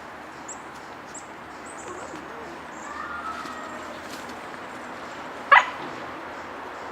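Siberian husky puppy giving a single short, sharp bark about five and a half seconds in, with faint whining before it.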